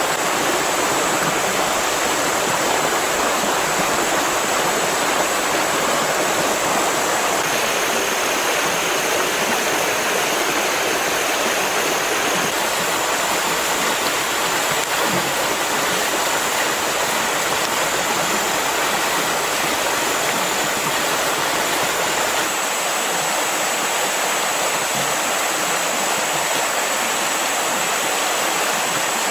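Steady rushing of flowing water, even and unbroken, with a thin, steady high tone above it that steps slightly in pitch a couple of times.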